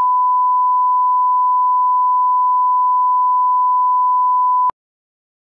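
Steady 1 kHz line-up test tone played over colour bars and a slate, a single unwavering beep that cuts off abruptly about four and a half seconds in.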